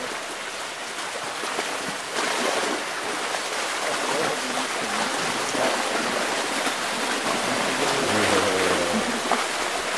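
Floodwater rushing through a breach eroding in a noncohesive earthen dam, a steady rush that steps up about two seconds in and grows louder as the breach widens.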